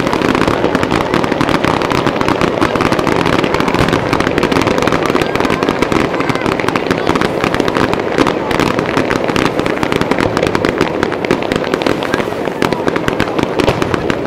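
Fireworks finale barrage: dense, unbroken popping and crackling as many small shells and gold crackle effects burst in quick succession.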